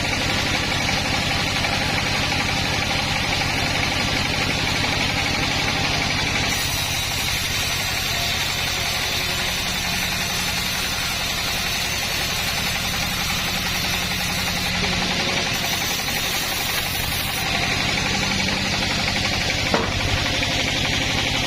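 An engine running steadily, its tone shifting slightly about six and a half seconds in, with a single sharp click near the end.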